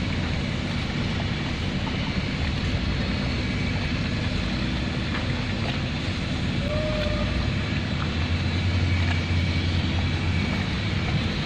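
Steady low drone of a tugboat's machinery running, growing a little stronger about eight seconds in.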